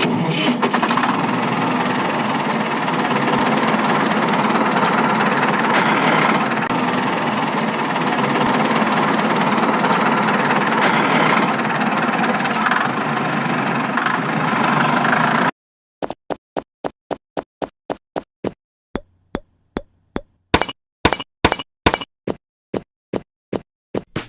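Small engine running steadily, most likely the mini tractor's motor. It cuts off abruptly about two-thirds of the way through, followed by a run of sharp clicks at about two to three a second.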